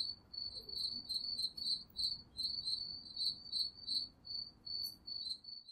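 Crickets chirping steadily, short high chirps about three a second: a sound effect setting a night-time scene.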